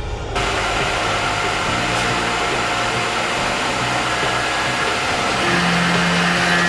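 Tormach 1100 CNC mill running a quarter-inch end mill: a steady hiss with a high spindle whine, starting suddenly, with a lower hum joining about five seconds in.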